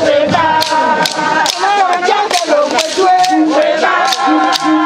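Group of women's voices singing a welcome song together, with sharp wooden knocks from hand-held wooden clappers keeping time, about two a second.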